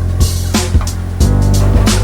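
Background music with a deep, sustained bass and a steady percussive beat.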